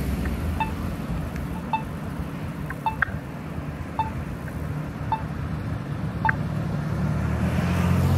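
Accessible pedestrian signal push button, a Polara Navigator, sounding its locator tone: a short, high beep about once a second. Under it runs the low rumble of traffic, and a car passes close near the end.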